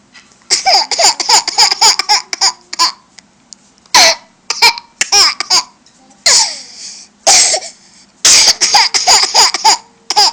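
A young child laughing in repeated fits of short, high-pitched bursts, with brief pauses between the fits.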